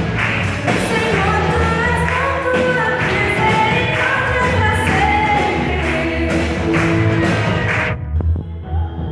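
Live church worship band playing with a lead voice singing, drums and cymbals keeping a steady beat. About eight seconds in, the drums and cymbals drop out, leaving the voice and the lower instruments.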